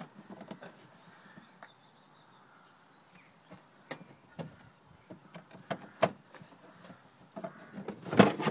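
Scattered clicks, knocks and rustles of things being moved about while rummaging in a car boot, with a louder clatter near the end.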